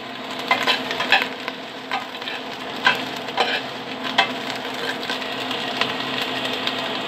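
Chopped green bell pepper sizzling in hot oil in a stainless steel pot, with a spoon scraping and clinking against the pot now and then as the pieces are stirred.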